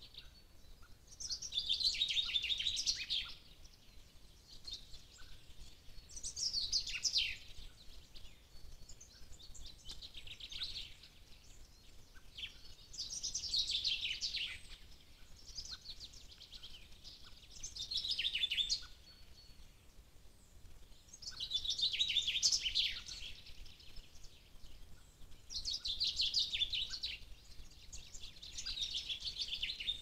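A songbird singing the same short phrase over and over, about every four seconds. Each phrase is a fast trill that falls in pitch over a second or two.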